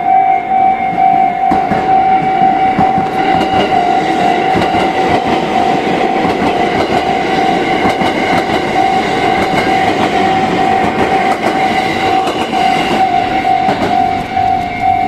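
Level-crossing warning bell ringing in an even, repeating beat while a train passes over the crossing. The train's rumble and wheel clatter build about three seconds in and fade near the end.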